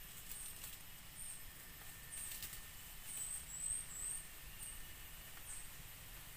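Forest ambience: a thin, high chirp repeating about once a second over a faint steady high whine, with brief crackles of brush and leaf litter twice in the first half as someone pushes up through the undergrowth.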